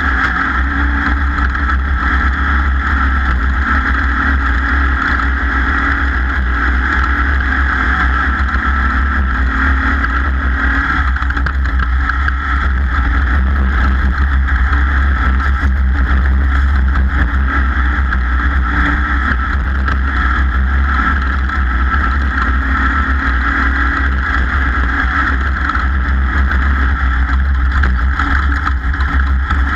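Racing boat engine running steadily at race speed, a loud continuous drone with a deep low rumble that holds without a break.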